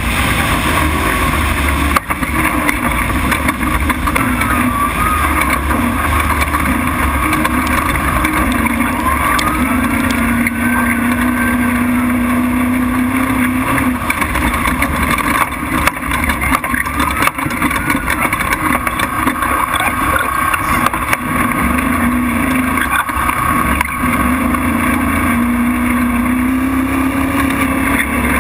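Off-road prerunner race truck engine running hard at speed over dirt, under a steady rumble of wind and road noise; twice the engine note climbs and holds for several seconds.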